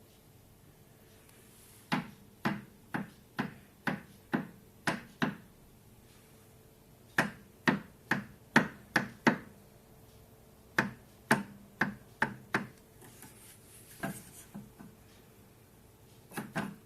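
Sharp knocks on the table saw, about two a second, in three quick runs, then a few softer knocks and a double knock near the end, over a faint steady hum.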